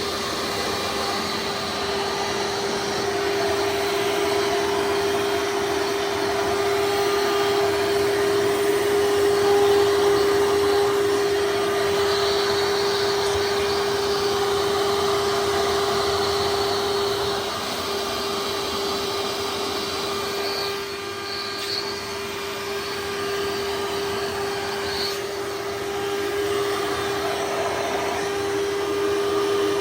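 2003 Hoover Soft & Light Supreme upright vacuum's 12-amp motor running steadily with the hose attached, a steady whine over rushing air; very loud.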